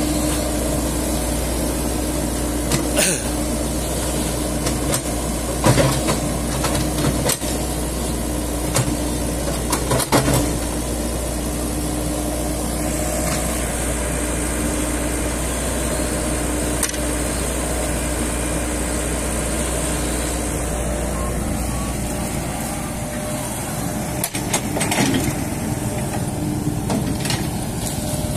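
Komatsu PC78US mini excavator's diesel engine running steadily at work, with a pitched whine that comes and goes. Several sharp knocks and clunks stand out over it.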